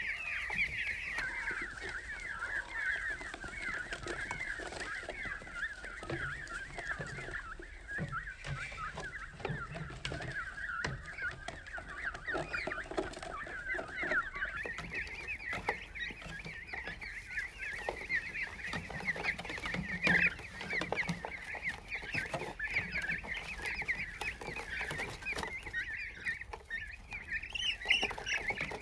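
A flock of young chicks peeping, many short high chirps overlapping without a break.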